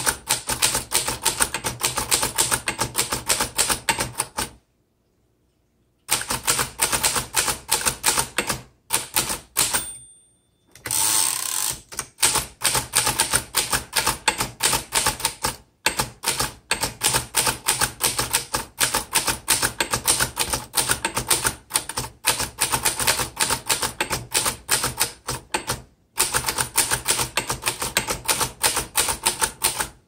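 1926 Underwood four-bank portable typewriter being typed on steadily: a rapid run of key strikes and typebar clacks, breaking off briefly about five seconds in and again about ten seconds in.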